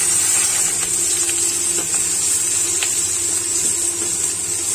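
Chopped onions and green chillies sizzling in hot oil in a kadai: a steady, loud hiss with scattered small pops and crackles.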